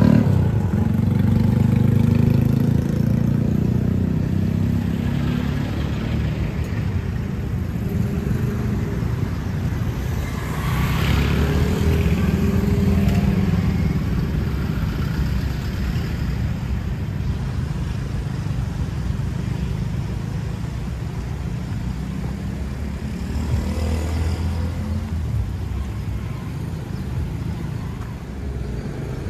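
Road traffic: cars and motorbikes going by, a steady low rumble of engines and tyres, with one vehicle passing close about ten seconds in.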